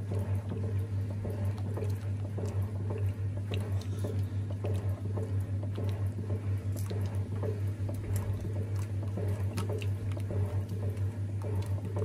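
1950s THOR washing machine's agitator churning clothes through soapy water, a continuous wet sloshing and squishing over the steady low hum of its electric motor.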